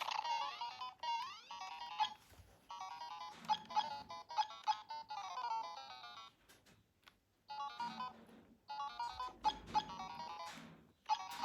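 Bright electronic music of quick beeping, ringtone-like tones with rising glides. It breaks off briefly about six to seven seconds in, and a few sharp clicks are heard.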